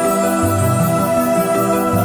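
Background music of sustained chords over shifting low notes.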